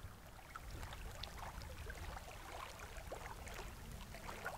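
Small waves lapping against a rocky lakeshore, with many little plinks of water over a steady low rumble.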